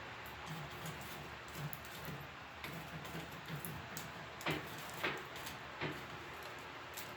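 Wood scraps burning in a wood stove, crackling with scattered small pops and ticks, and three louder sharp cracks a little past halfway.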